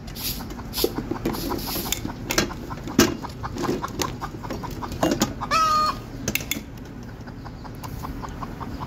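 Domestic chickens clucking in a coop, with one louder call that bends in pitch about five and a half seconds in. Scattered sharp clicks come through between the clucks.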